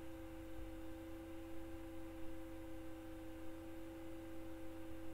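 Faint steady electrical hum, with two constant tones over quiet room noise.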